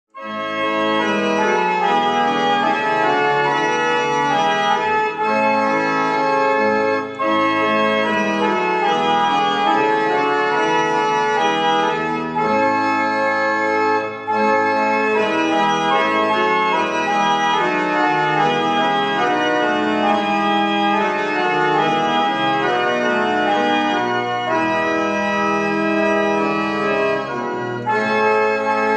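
Rieger pipe organ playing, a continuous flow of held chords and moving notes that starts abruptly and runs without a break.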